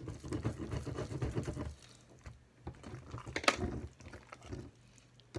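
Homemade glue-and-laundry-detergent slime being squeezed and kneaded by hand, a quick run of wet squelches and small sticky pops for the first couple of seconds. Then it goes quieter, with one sharp click about three and a half seconds in.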